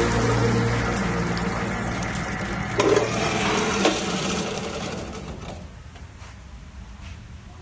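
Swirl freeze blender running its self-washing cycle: the motor hums and water sprays around the spinning auger, with two knocks about three and four seconds in. The noise then dies away.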